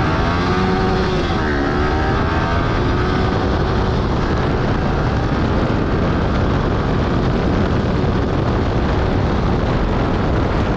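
Yamaha R15 V3's 155 cc single-cylinder engine revving hard under full-throttle acceleration, its pitch dipping at an upshift about a second and a half in, then climbing again. From about three seconds on, a steady rush of wind on the microphone at high speed covers the engine.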